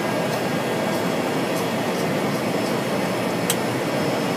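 Steady drone of a Cessna 208B Caravan's PT6A turboprop engine and propeller, heard from inside the cockpit as the aircraft moves on the ground after landing. A single short click sounds about three and a half seconds in.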